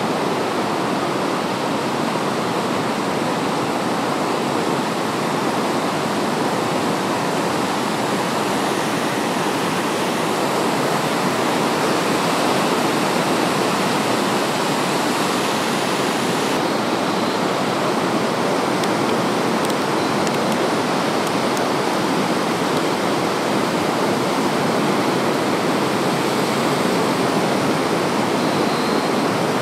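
Steady rush of Arabian Sea surf breaking on a beach, an even wash of noise with no single wave standing out.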